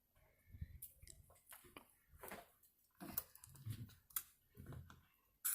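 A plastic water bottle being handled and its cap opened: a run of faint crinkles, clicks and soft knocks, with a sharper click near the end.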